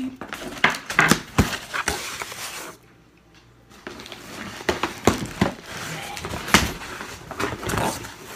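A cardboard shipping box being opened: packing tape slit and torn and the flaps pulled apart, with scraping, crinkling and scattered knocks, and a short lull about three seconds in.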